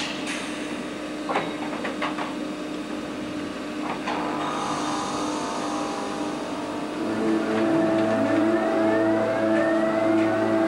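Le Shuttle electric locomotive running over pointwork: a steady electric hum with a few sharp clicks from the wheels crossing the points. From about seven seconds in, the traction drive whine grows louder and several tones rise together in pitch as it picks up speed.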